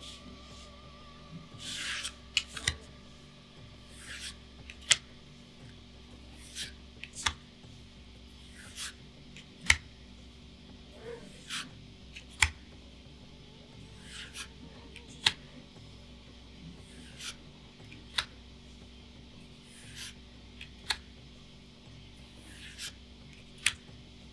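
Magic: The Gathering trading cards from a freshly opened booster pack being slid off the stack and flipped one at a time. Each card gives a sharp snap every second or two, with soft sliding rubs between.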